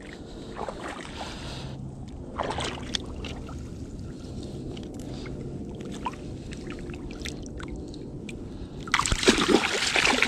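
Bowfin released by hand into shallow pond water: quiet sloshing and handling in the water, then a loud splash about nine seconds in as the fish kicks free and swims off.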